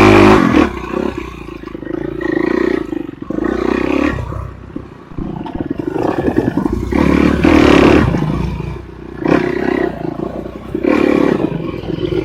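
Enduro motorcycle engine revving in repeated surges, about every one and a half to two seconds, as the throttle is opened and closed on the trail.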